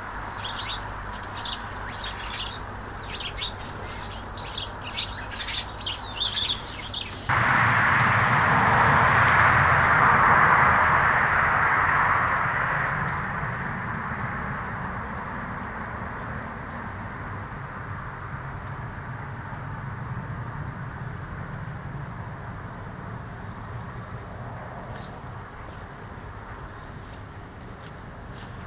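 Small garden birds chirping and twittering busily, then one bird repeating a thin, high, falling call about once a second. A rushing noise comes in suddenly about seven seconds in, swells, and fades away over the next several seconds.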